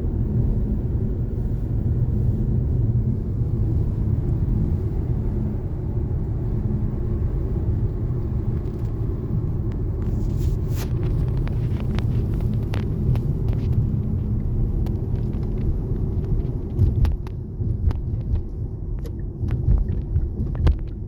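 Car driving along a road: a steady low rumble of engine and tyres, with scattered light clicks in the second half.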